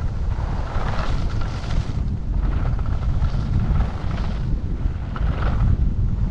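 Wind buffeting a GoPro MAX action camera's microphone during a downhill ski run, a steady low rumble. Over it comes the hiss of skis sliding on groomed snow, swelling and fading about once a second or so with the turns.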